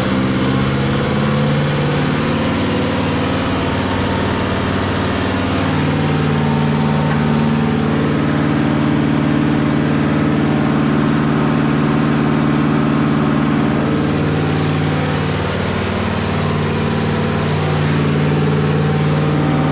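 Kubota MU5501 tractor's four-cylinder diesel engine running really loud with the rear PTO shaft engaged, first at 540 RPM and then at 750 RPM. The engine note shifts in pitch about six seconds in, dips around fifteen seconds in, then picks up again.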